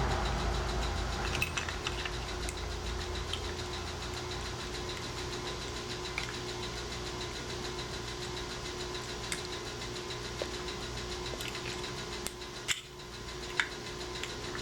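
A steady low machine hum with several fixed tones, louder for the first couple of seconds and then easing, with scattered faint clicks and taps.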